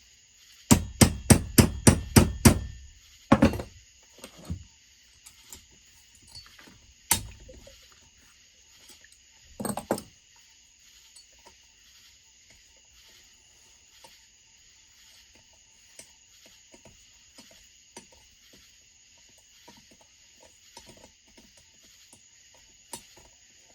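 A quick run of about eight sharp hammer taps on the chainsaw during teardown, roughly four a second. A few single knocks follow, then light clicks of tools and parts being handled.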